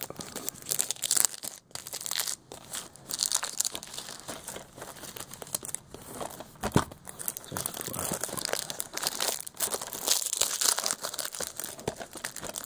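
Plastic shrink-wrap being torn and peeled off a Blu-ray case: an irregular run of crinkling and crackling with sharper tearing sounds.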